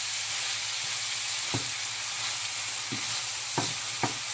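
Mixed vegetables sizzling in hot oil in a frying pan while being stirred with a wooden spatula, a steady hiss with the spatula knocking against the pan four times.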